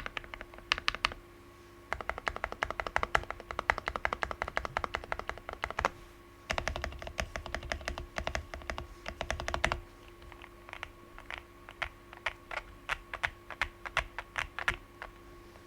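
Typing on a QK65 mechanical keyboard with lubed TKC Tangerine switches on a POM plate and no case foam. Fast runs of keystrokes come in bursts with short gaps, and in the last few seconds the presses slow to separate single strokes.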